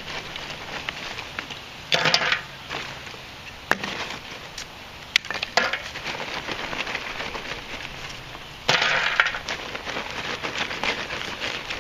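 Lumps of hardwood lump charcoal put by hand into a sheet-metal forge coal box, clinking and clattering. There are a few sharp single clinks and two longer clattering spells, about two seconds in and again about three quarters of the way through.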